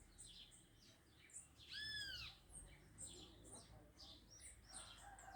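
Birds chirping faintly, a scatter of short high chirps, with one louder arched call about two seconds in.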